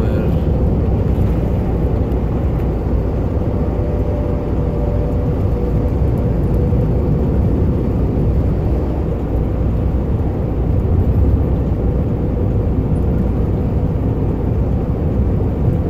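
Steady low engine and tyre rumble heard from inside a vehicle cruising at highway speed, with a faint steady whine above it.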